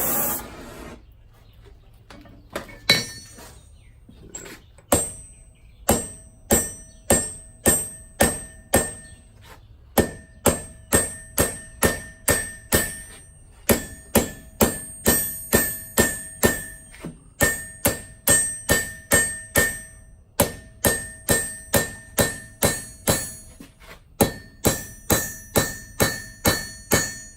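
Hand hammer striking a hot rivet head on the bookend, peening it into facets, each blow ringing brightly off the metal. A few scattered blows are followed by a steady run of about two a second. A steady rushing noise, the heating torch, stops about a second in.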